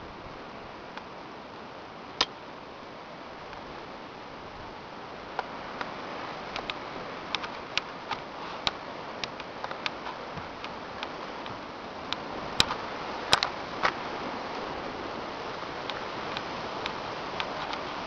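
Steady outdoor hiss with irregular sharp clicks and ticks, one about two seconds in and many more from about five seconds in, as a handheld camera is carried along a forest trail.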